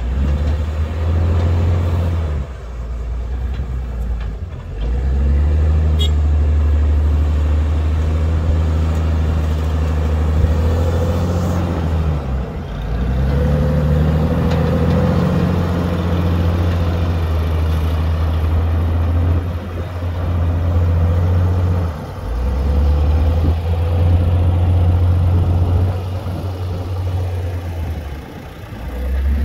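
Diesel engines of a wheel loader and a farm tractor running under load: a steady low drone that rises in pitch a few times and dips briefly now and then.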